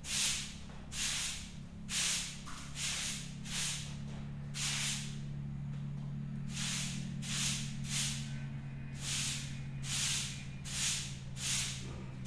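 Broom swishing across a concrete floor in quick repeated strokes, one every second or less, pausing briefly about halfway through. A steady low hum runs underneath.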